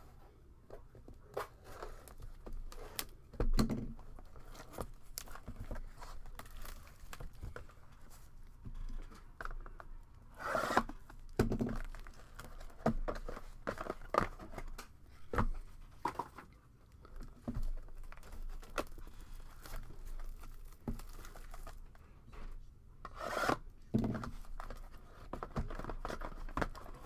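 A sealed box of trading cards being opened by hand: plastic wrap cut and torn, with crinkling and cardboard rubbing, and a few louder knocks.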